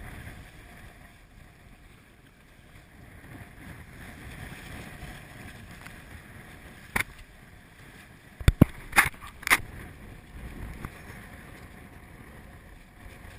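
Wind and sea noise around a moving inflatable boat, a steady rushing haze. Past the middle come a handful of sharp knocks and snaps, the loudest sounds here.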